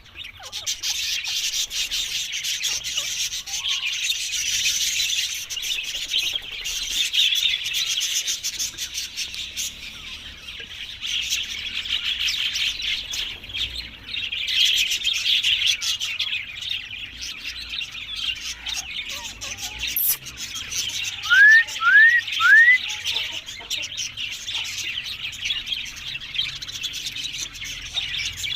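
Rose-ringed parakeets (green ringneck parrots) chattering and chirping continuously. Three loud, short rising calls come in quick succession about two-thirds of the way through.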